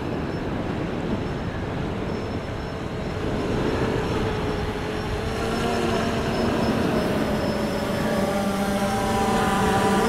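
3DR Solo quadcopter's motors and propellers humming, the steady hum growing stronger from about four seconds in as the drone flies in close, over constant gusty wind noise on the microphone.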